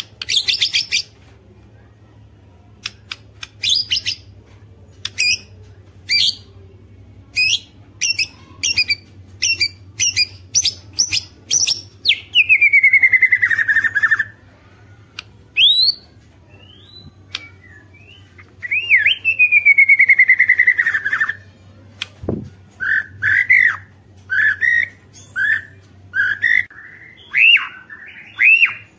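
White-rumped shama singing: a run of short, sharp high notes, then two long falling phrases, then a string of short curved whistled notes near the end.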